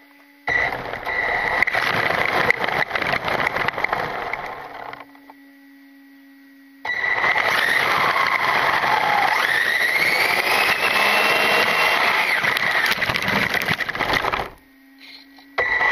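LRP S10 Blast 2 brushless electric RC touring car driving in two runs: a first burst of about four seconds, then a longer one of about eight seconds. Through both, the motor's high whine rises and falls with the throttle. In the pauses there is a faint steady hum.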